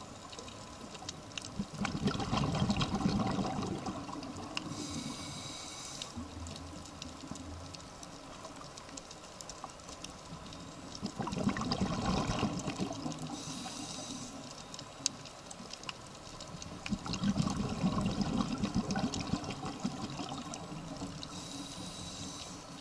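Scuba diver's regulator breathing heard underwater: three long rushes of exhaled bubbles several seconds apart, with a short high hiss of inhalation through the regulator between them.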